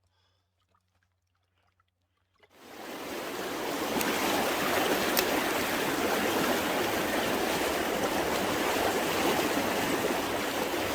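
Near silence, then the rushing of a stream fades in about two and a half seconds in and runs on as a steady, even wash of water.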